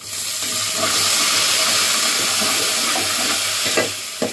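Water poured into hot oil with fried onions and spices in an aluminium pot, hissing and sizzling loudly as it hits the hot fat. The hiss starts abruptly and dies down near the end, and two sharp knocks of the stirring spoon against the pot follow.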